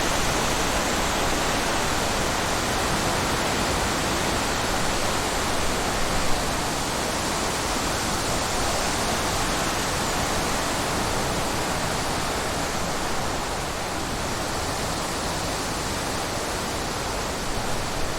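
Wind blowing steadily, a continuous even rush of breeze, with one brief louder moment about six seconds in.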